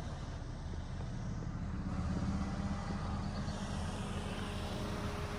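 Car engine and road noise while driving slowly: a steady low hum that grows a little louder about two seconds in.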